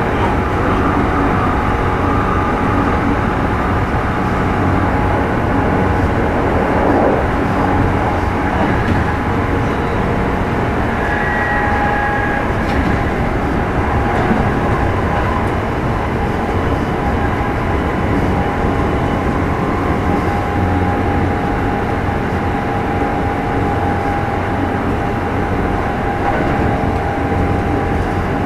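Running sound of a Kintetsu 2430-series electric train heard aboard its motor car: a steady rumble of wheels on rail with a steady whining tone over it.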